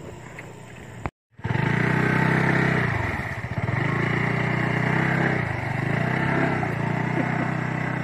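Motor scooter engine running under load through mud, its pitch rising and falling as the throttle is worked. The engine comes in after a brief drop to silence about a second in.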